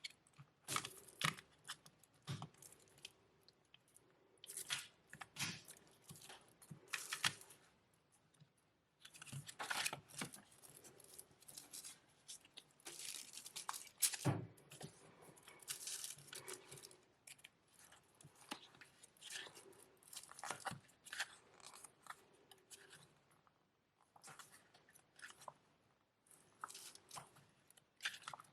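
A CD album's packaging being unwrapped and handled: a long run of rustling, crinkling and tearing noises with occasional sharper clicks and taps.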